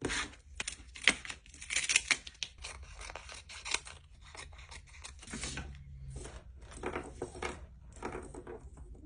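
Vinyl decal material being worked by hand: irregular crackling peels and scrapes, busiest in the first few seconds.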